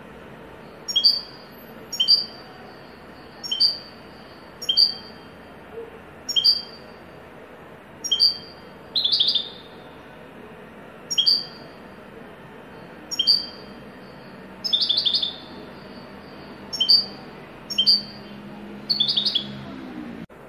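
European goldfinch singing the 'haddadi' (blacksmith) song, imitating the haddad bird. It repeats a short, sharp, high note about once every second or so, broken three times by a brief rattling trill.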